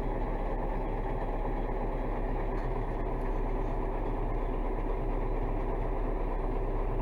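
Large diesel engine idling steadily.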